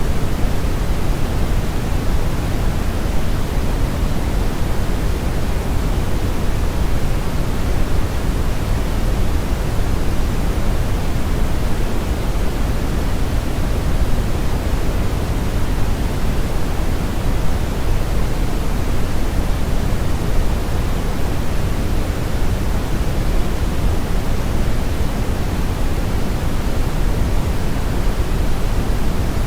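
Steady synthetic brown noise blended with white noise: an even, unbroken rushing hiss, heaviest in the low end with a thinner hiss above.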